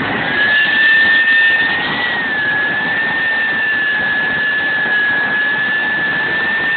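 Gas turbine of a JetMach Sport 60 model jet, heard from a camera mounted on the airframe, running with a loud steady high whine as the jet rolls along the ground. Its pitch rises briefly about two seconds in.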